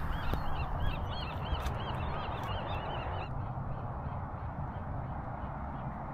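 A bird calling in a rapid series of short, arched notes, about two or three a second, fading out about three seconds in, over a steady rushing background.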